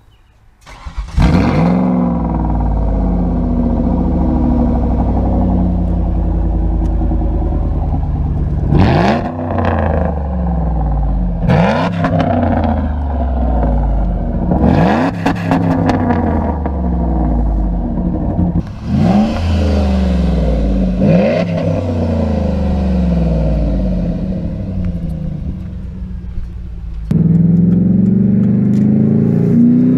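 Ford Taurus SHO's 3.4-litre Yamaha-headed 60-degree V8 comes to life about a second in, then idles and is revved in about five short blips, each rising and falling away. Near the end it pulls steadily under acceleration, heard from inside the cabin, its pitch climbing.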